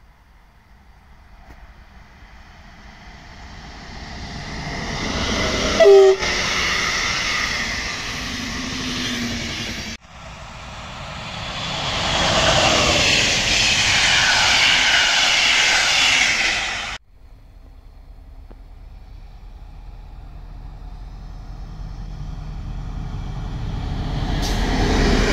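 A train approaching along an electrified line sounds a brief horn blast about six seconds in. After a sudden cut, a MÁV V43 electric locomotive and its passenger coaches pass close with loud wheel and rail noise. After another cut, a diesel locomotive running light approaches, its low engine rumble growing toward the end.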